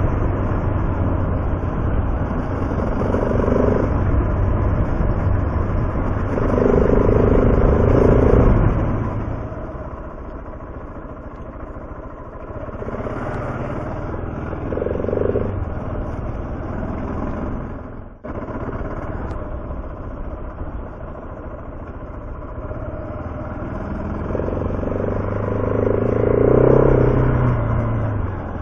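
Motorcycle engine running under way on a dirt road, with wind and road noise. The engine pulls harder for the first eight seconds, eases off through the middle, and picks up again, rising, a few seconds before the end.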